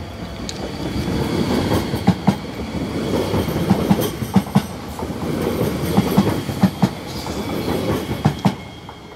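SNCB AM08 Desiro ML electric multiple unit passing close by, its wheels rumbling on the rails, with a sharp pair of clicks each time a bogie's two axles cross a rail joint. The sound fades away near the end.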